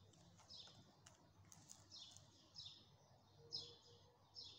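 Faint bird chirps: a short, high note that falls in pitch, repeated about five times at uneven intervals of half a second to a second.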